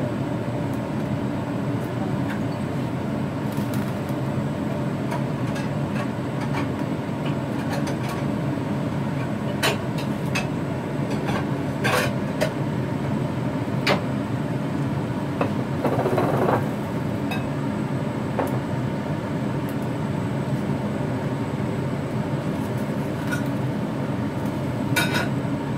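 A covered wok of squid and napa cabbage cooking on the stove: a steady low rushing hum from the burner and kitchen. It is broken by a few sharp clicks and pops from the wok and lid, with a brief higher sizzle partway through.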